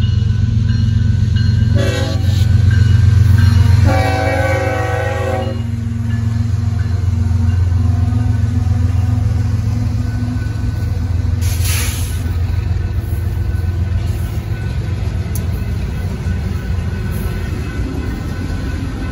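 BNSF freight train led by GE ES44C4 diesel locomotives approaching and passing a grade crossing. The horn sounds about two seconds in and drops in pitch about two seconds later as the lead unit passes, then stops; the diesel engines keep running by over the clatter of wheels on the rails, with a short hiss near the middle.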